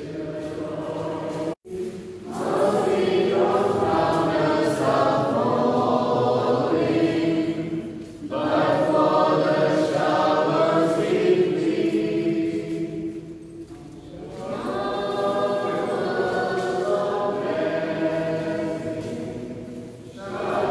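A group of voices singing a hymn together, in three long phrases with short breaks between them.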